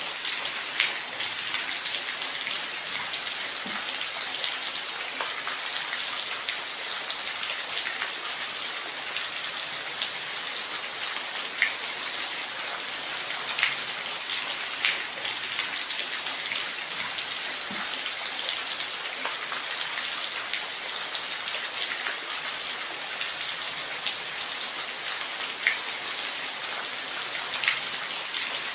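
Steady rain falling, a constant hiss with scattered individual drops landing on a hard surface, a few louder single drips standing out.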